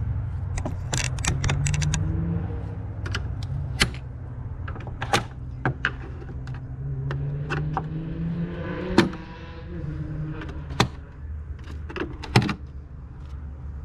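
Sharp metallic clicks and snaps at irregular intervals as hose clamps are worked onto the fuel hoses with pliers, over a steady low rumble of a vehicle engine.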